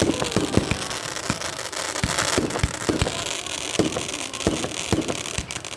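Röder Alpha Centauri consumer firework battery firing: a rapid, irregular run of launch thumps and bangs, a few a second, over a steady crackling that peaks about two seconds in.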